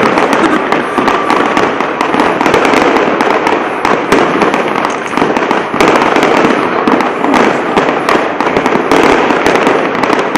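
Aerial fireworks display going off overhead in a dense barrage: a rapid, continuous run of overlapping bangs and crackles with no pause.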